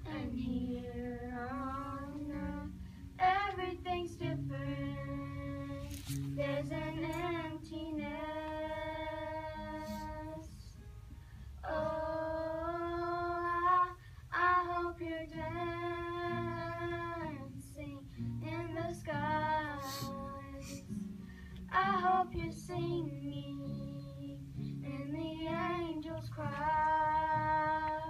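Girls singing a slow song in long, held notes with a slight waver, over a soft instrumental backing.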